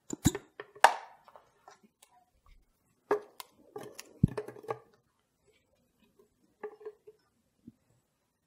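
Plastic clicks and knocks as the lid and jar of a Vidia BL-001 vacuum blender are opened and handled, in short irregular clusters, with a heavier thud about four seconds in.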